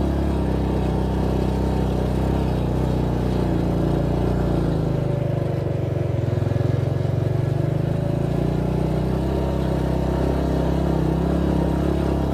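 Motorcycle engine running under load on an uphill climb, its note rising for a few seconds about halfway through and then dropping back.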